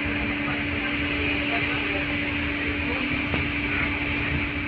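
Inside an LVS-86 articulated tram while it runs: a steady electrical hum over a continuous rumble and hiss of running noise, with one faint tick about three seconds in.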